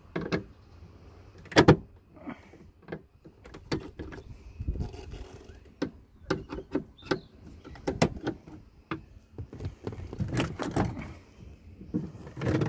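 Screwdriver working the fasteners of a plastic dashboard panel in a truck cab, with scattered clicks, taps and knocks as the panel is handled and opened to reach the fuse box.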